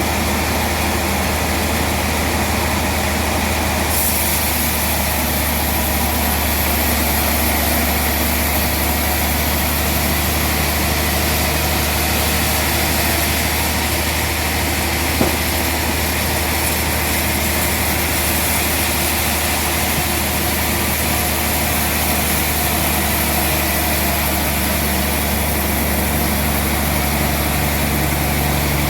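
A heavy engine running steadily at an even speed, with one faint tick about halfway through.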